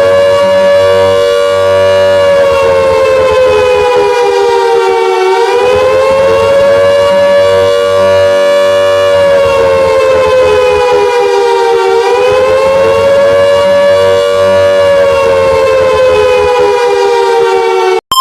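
Civil-defense-style siren wailing as an emergency alert tone. The loud, steady tone with many overtones holds its pitch, sags and climbs back twice, and cuts off abruptly near the end.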